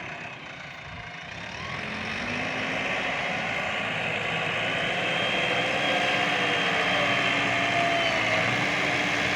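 Heavy diesel engine of earthmoving machinery running and building up, growing louder over the first few seconds, with a whine that shifts up and down in pitch.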